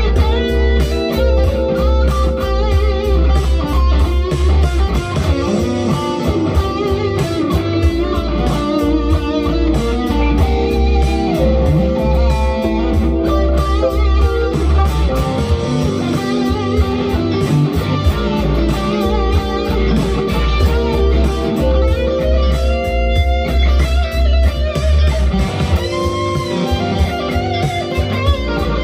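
Epiphone SG electric guitar played through an amp, single-note lead lines over a funk groove backing track in G with bass and drums.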